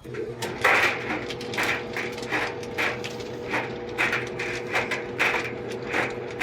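LG DLGX3901W gas dryer starting up and running, a steady motor and drum hum. About twice a second, unevenly, loose objects clink and knock as they bounce around, almost like coins. They are caught inside a hollow drum baffle and tumble as the drum turns, and they are the cause of the dryer's rattling noise.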